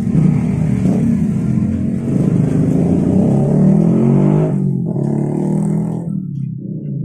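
A motor vehicle engine running, its pitch rising and falling as it revs.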